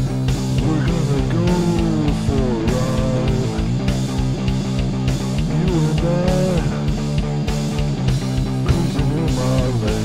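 Rock song with guitar and bass over a fast, steady drumbeat; a lead line bends up and down in pitch above them.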